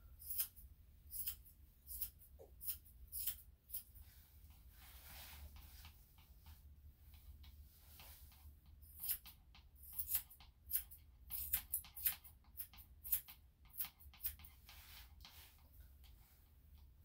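Grooming scissors snipping the hair on a Yorkshire Terrier's face: short, sharp snips, a handful spaced out over the first few seconds, then a quicker run of snips through the second half.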